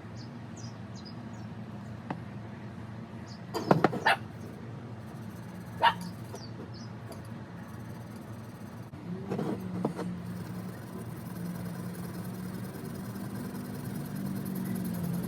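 A dog barking in short sharp yips, a quick cluster about four seconds in, then single ones near six and ten seconds, over a steady low hum.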